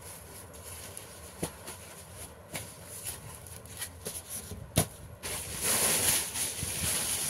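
Sheets of paper being handled and folded: a few sharp taps and creasing clicks, then a louder stretch of paper rustling starting about five seconds in.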